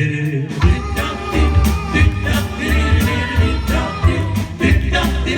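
Live doo-wop band starting the song's intro, with drums and bass coming in together about half a second in and singing over them.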